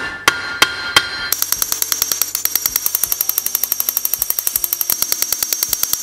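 Riveting the iron flange of a Sarven wagon-wheel hub, metal striking metal. A few separate ringing blows come first. About a second in, a fast, steady rattle of blows begins, roughly a dozen a second, and runs for several seconds.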